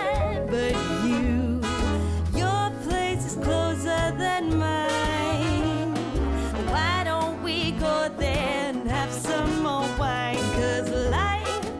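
Background music: an upbeat swing-style song with a steady bass line and melody instruments.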